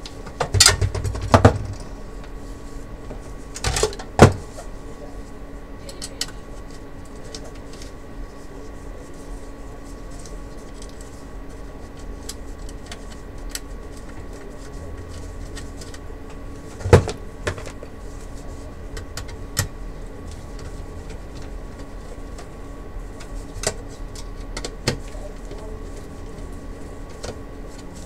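Sheet-metal monitor chassis and circuit boards being handled on a workbench: scattered knocks and clatter, loudest in a cluster about a second in, once near four seconds and once near seventeen seconds, over a steady faint hum.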